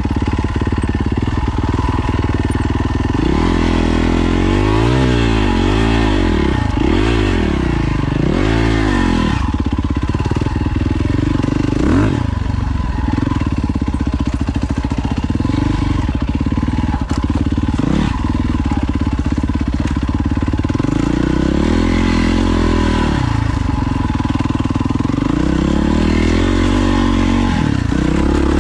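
Four-stroke single-cylinder dirt bike engine running under load, its pitch rising and falling again and again as the throttle is opened and closed.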